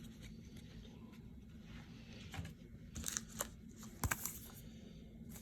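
Faint handling of trading cards and a foil card-pack wrapper, with a few short crinkles and clicks about three and four seconds in.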